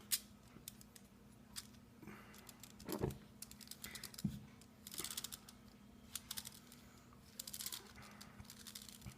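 Light scattered clicks and rattles of small plastic calculator parts and loose rubber-and-plastic keys being handled and shifted around, with a few slightly louder taps.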